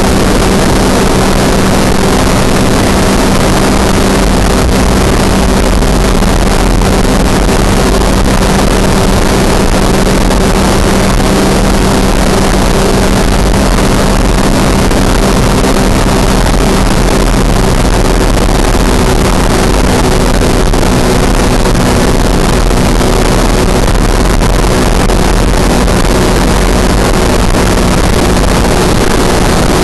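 Ultralight aircraft's engine and propeller running at a steady cruise drone, with air rushing over the microphone.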